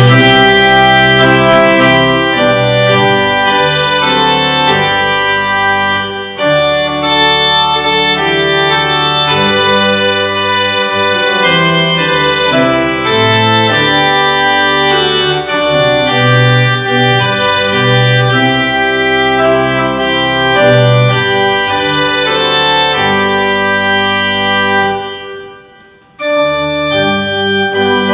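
Instrumental music of long, held chords that change every second or so. It fades out about 25 seconds in, breaks off for a moment, and starts again.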